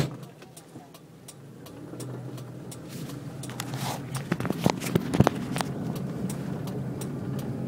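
Car engine running, growing louder about two seconds in as the car pulls away, with scattered clicks and knocks.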